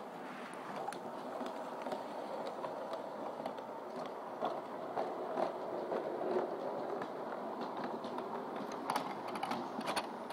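LGB G-scale model train running past: its motor and gears whirring steadily, with sharp clicks that come thickest near the end.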